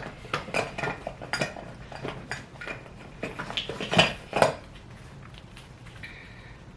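Hard plastic makeup containers and tools clicking and clinking as they are handled and set down: a run of light taps and clacks, the loudest two close together about four seconds in.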